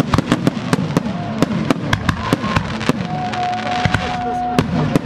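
Fireworks display: a rapid run of sharp bangs and crackles from aerial shells bursting overhead, several reports a second.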